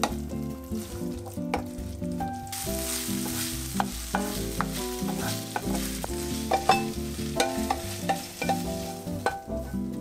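Thin-sliced beef sizzling in a ceramic frying pan as a wooden spatula stirs and scrapes it, with sharp taps of the spatula against the pan; the meat is then scraped out of the pan into a glass bowl.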